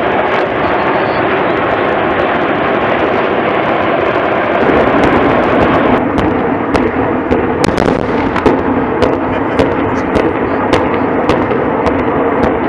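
Naval firing display: a steady rushing noise, and from about halfway through a rapid, irregular string of sharp cracks and pops, several a second.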